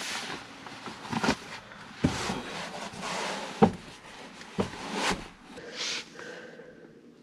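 Rustling of clothes and bedding with about five sharp knocks and clunks spread through, as someone gets dressed and moves about inside a truck cab.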